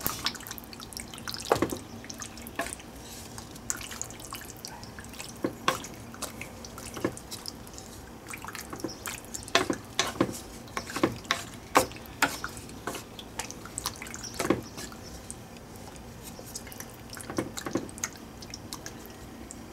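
Wooden spatula stirring rigatoni through thick tomato meat sauce in a steel pan: irregular wet squelches and light knocks and scrapes of the spatula against the pan.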